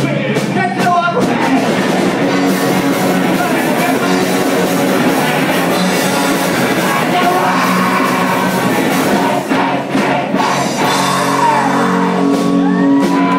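Rock band playing live: electric guitars, drums and shouted vocals.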